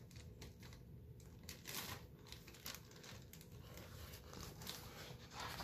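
Faint rustling and crinkling of a picture book's paper pages as the book is held up and handled.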